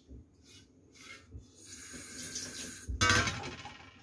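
Kitchen tap running into a sink for about a second, then a louder splash and clatter about three seconds in that fades quickly.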